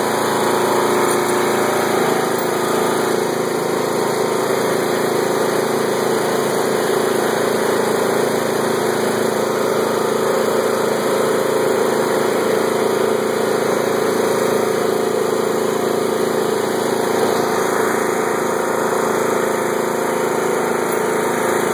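Craftsman LT1500 lawn tractor's engine running steadily as the tractor drives along, its mower blades not yet engaged.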